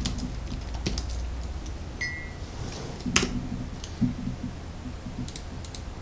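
Typing on a computer keyboard: irregular keystrokes and clicks, one sharper click about three seconds in, over a steady low hum.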